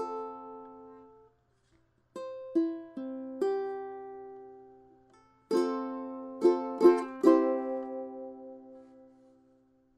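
Intro jingle on a plucked string instrument: a chord fading at the start, then after a short gap two groups of four quick strummed chords, each ringing out and decaying, the last one fading away near the end.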